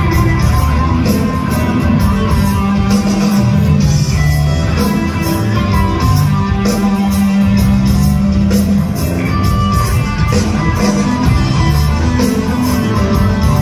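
Live rock band playing loudly, recorded on a phone from the audience: drum kit keeping a steady beat under electric guitar and bass.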